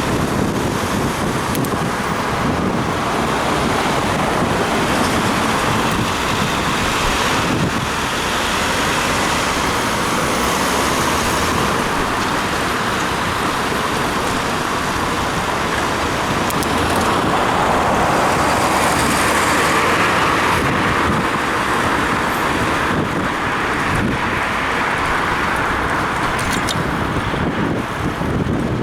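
Steady rush of wind over a head-mounted action camera's microphone while cycling, mixed with road traffic noise.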